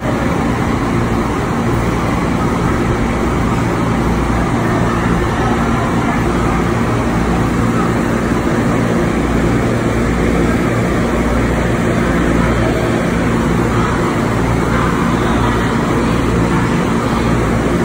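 Steady, loud rumble of a subway station, with low humming tones under an even wash of noise and no voices standing out.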